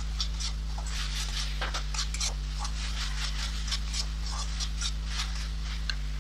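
Metal slotted spatula scraping and stirring a thick onion-tomato spice paste around a nonstick wok, in quick irregular strokes, over a steady low hum.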